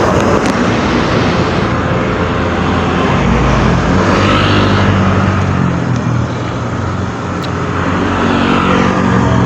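Hino truck passing on the road, its diesel engine running with tyre noise, followed by more passing traffic near the end.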